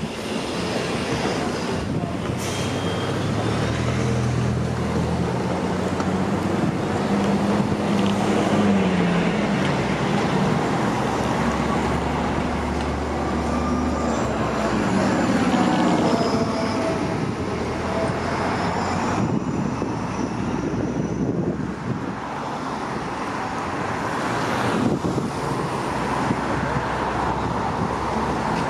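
2006 Orion VII hybrid-electric transit bus pulling away from a stop and passing close by: a pitched drivetrain hum that rises as it accelerates, then falls as the bus goes past and away, leaving street traffic noise.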